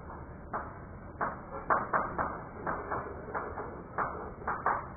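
Chalk writing on a blackboard: a quick run of short scratching, tapping strokes, about two to three a second.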